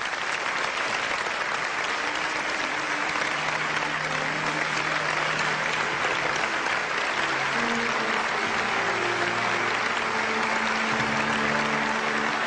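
A large audience applauding steadily, with soft background music of long held notes coming in underneath about two seconds in.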